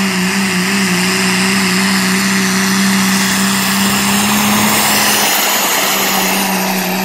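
Modified diesel pulling pickup at full throttle, dragging a weight-transfer sled down the track. A loud steady engine note runs under a dense hissing rush.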